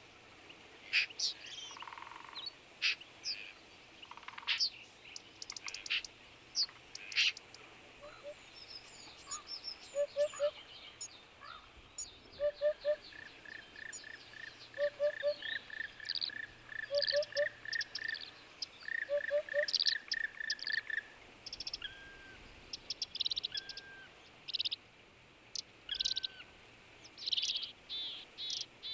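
Several wild birds calling and singing, with short high chirps and trills throughout. For a stretch in the middle, a low three-note call repeats about every two seconds alongside a steady run of evenly spaced notes.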